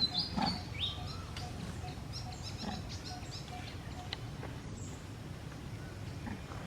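Outdoor ambience of short, high chirping calls in quick runs, mostly in the first second and again from about two to three seconds in, over a steady low rumble.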